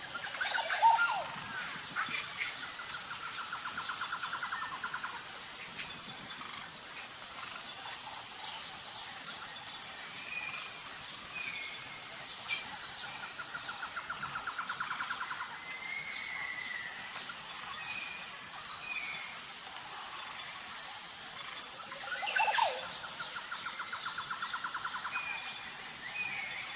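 Tropical forest ambience: a steady, high, pulsing insect chorus with birds calling over it in short chirps. A fast rattling trill comes three times, and a louder sweeping call sounds about a second in and again near the end.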